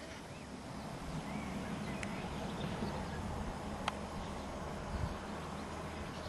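Quiet outdoor background noise with a steady low rumble, a few faint bird chirps near the start and a couple of small clicks.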